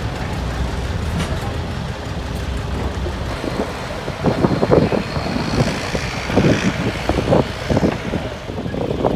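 Heavy old construction machine's engine running steadily, with irregular louder bursts from about four seconds in.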